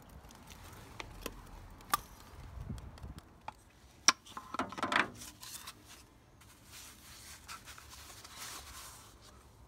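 Handling noises from the MagnaClean filter's magnet rod and plastic sleeve as they are put back together: a few sharp clicks and knocks, the loudest about four seconds in, with rubbing and scraping around them.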